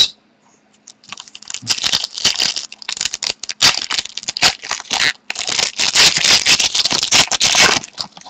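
Close crinkling and rustling of a trading-card pack's wrapper and cards being handled, with a short pause about five seconds in.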